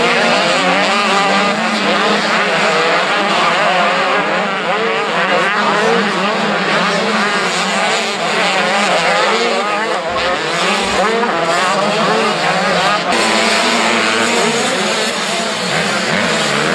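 A pack of motocross motorcycles racing, many engines revving up and down at once in a loud, continuous din.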